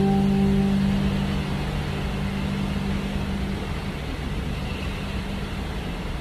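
The last low harp notes ringing on and fading away over the first few seconds, leaving a steady rushing noise of wind and the boat under way at sea.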